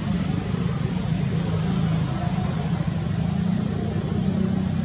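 A steady low engine rumble, unchanging in level.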